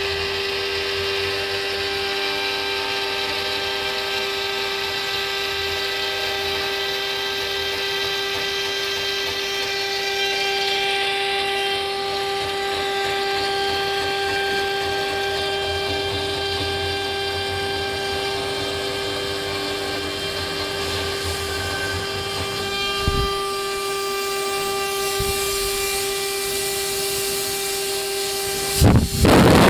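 JINKA 3827 CNC router spindle running with a steady high-pitched whine as its end mill cuts 3 mm Dibond aluminium composite panel. A brief knock comes about 23 seconds in, and a sudden loud rush of noise cuts in near the end.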